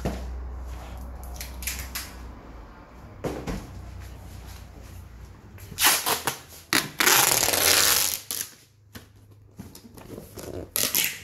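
Packing noises from cardboard boxes and plastic bags of tea being handled: scattered knocks and rustles, with a loud rush of rustling about six seconds in that lasts some two seconds.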